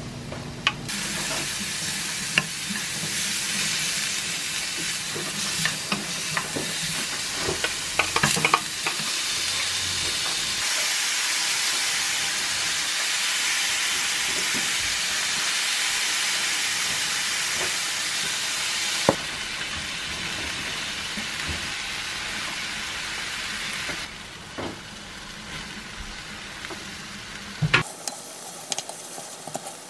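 Sliced onion and garlic sizzling as they stir-fry in a ceramic-coated frying pan, with a few sharp knocks of a wooden spoon against the pan. The sizzle steps down quieter about two-thirds of the way through and again near the end.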